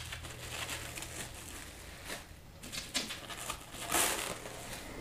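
Plastic bubble wrap rustling and crinkling as it is pulled back by hand, in irregular handfuls, with a louder rustle about four seconds in.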